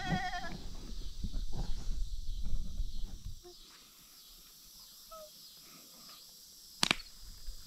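A goat's bleat trails off at the start, followed by a low rumbling noise for about three seconds. It then goes quiet, with a few faint short chirps and one sharp click near the end.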